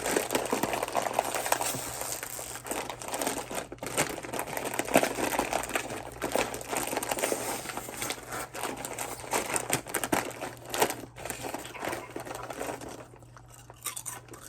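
Crinkly chip bag of salt and vinegar chips being handled and opened, with irregular rustling and sharp crackles that ease off near the end.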